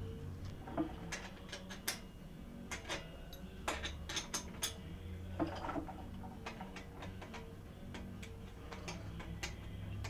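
Scattered light metallic clicks and ticks from a wrench working the rear axle nut loose on a BMX bike, coming at an irregular pace over a faint steady hum.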